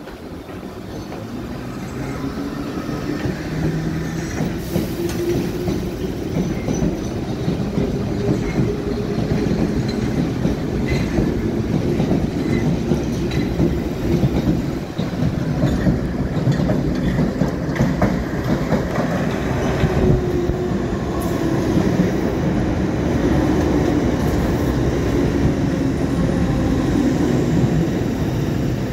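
A London Underground Piccadilly line 1973 Stock train running past close by, its wheels clattering over the rails under a whine that rises and falls in pitch. It grows louder over the first few seconds and then stays loud.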